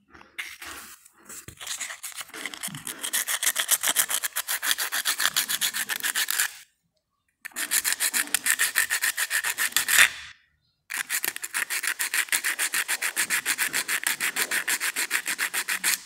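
A small metal contact rubbed back and forth by hand on coarse sandpaper, in quick even scraping strokes, several a second. The strokes come in three runs with two short pauses. The sanding is scraping off rust that was making the washing-machine thermo-actuator's contact fail.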